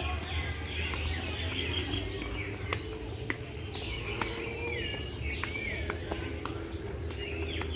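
Many birds chirping and calling together, with overlapping short chirps that fall in pitch, over a steady low hum and a few sharp ticks.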